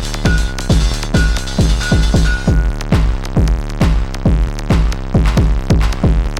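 Early-1990s techno track: a drum-machine kick beats steadily about twice a second under dense synth layers. The bright upper layer and a short repeated high tone drop out about two and a half seconds in.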